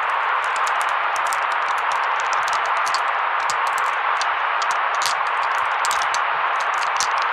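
Steady white-noise track: an even hiss centred in the middle range, with irregular crackling ticks scattered through the high end.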